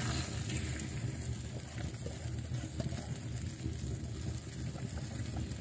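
Chicken fillet sizzling in hot oil in a frying pan set over an open wood fire, a steady hiss with scattered small pops, over a steady low rumble.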